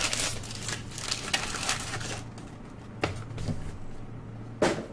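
Trading card packs being opened and handled: a crinkling, tearing rustle of the pack wrapper for about the first two seconds, then quieter handling of the cards with a sharp click about three seconds in and another near the end.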